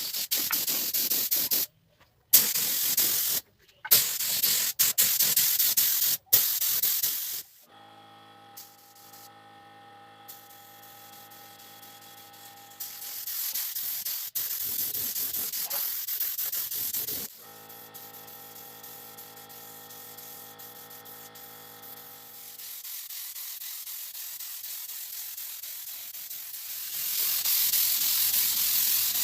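Spray hissing in repeated short bursts for the first several seconds, typical of spraying a finish onto wood. After that a steady hum with several even tones runs under intermittent spraying, and a continuous spray hiss builds near the end.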